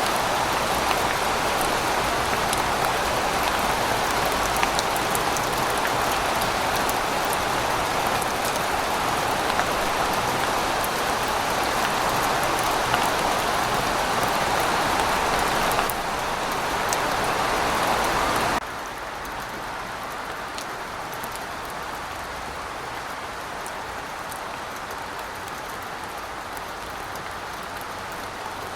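Steady rain falling in a city, with a low rumble of distant traffic underneath. About two-thirds of the way through, the whole sound drops suddenly to a softer rain hiss.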